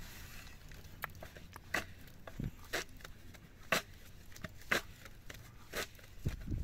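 A series of short, sharp taps at an uneven pace, about one a second, over a faint low background.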